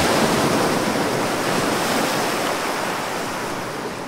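Ocean surf washing in a steady rush, slowly fading toward the end.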